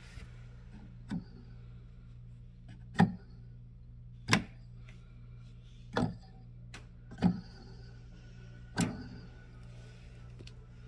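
A steady low hum with six sharp knocks, spaced about one to two seconds apart.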